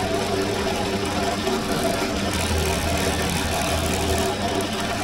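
Bench drill press running steadily, its motor humming, while a fine bit drills stitch holes through a leather sheath face. The low hum grows stronger for about two seconds in the middle.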